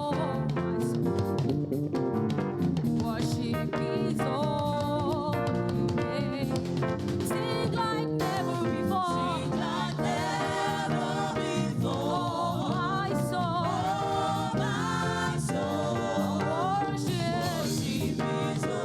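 Live gospel praise music from a church choir and band: voices singing over instruments.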